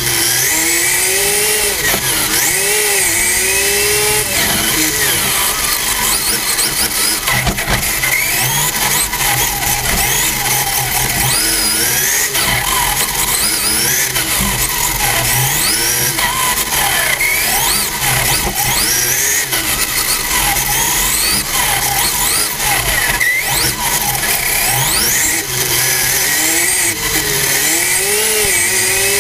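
Radio-controlled touring car's motor and drivetrain heard on board, whining up and down in pitch again and again as the car speeds up and slows around the track, over a steady rush of noise.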